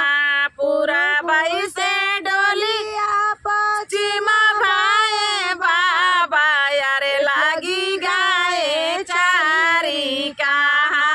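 Two women singing a North Indian folk wedding song (vivah geet) without accompaniment, in wavering melodic phrases broken by short breaths.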